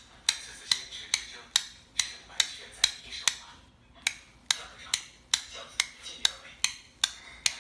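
A steady series of sharp taps or clicks, about two a second, with one short pause a little before the middle.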